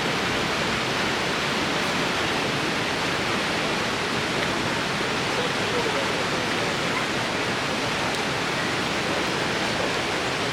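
Steady rush of a waterfall and river pouring into a deep swimming hole.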